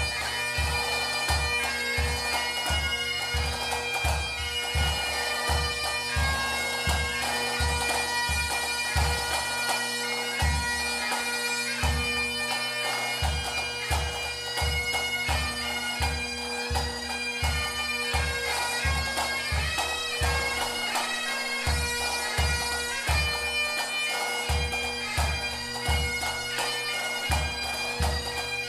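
Pipe band music: bagpipes playing a tune over their steady drone, with a bass drum beating about twice a second that drops out briefly a few times.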